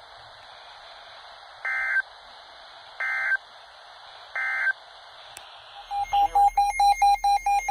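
NOAA Weather Radio end-of-message data bursts through a Midland weather alert radio's speaker: three short buzzy chirps about a second apart, marking the end of the broadcast alert. About six seconds in, the radio's own alarm starts: rapid beeping on one tone, about six beeps a second.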